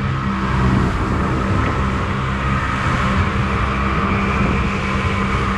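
Outboard motor of a small aluminium boat running steadily under way, a constant hum under a steady rushing noise, while crossing the river-mouth bar.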